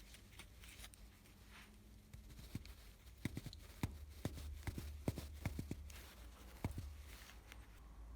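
Irregular light knocks and clicks, about a dozen, sparse at first and coming thickest from a couple of seconds in until near the end, over a faint low hum.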